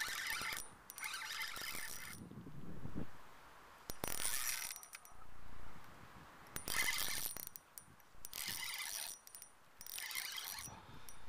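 A fishing reel cranked in about six short whirring, ticking bursts of roughly a second each, with brief pauses between them, as line is wound in.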